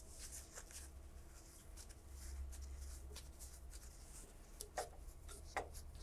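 Faint scratching and clicking of a screwdriver loosening the retaining screws of a CPU heat sink, with a couple of sharper clicks near the end, over a low hum.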